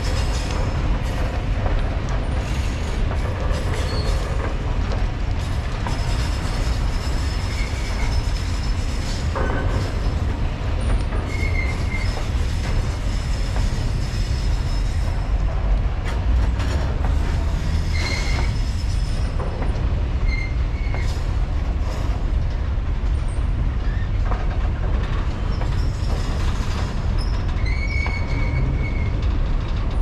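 Freight train wagons rolling past: a steady heavy rumble of steel wheels on the rails, with short high wheel squeals now and then.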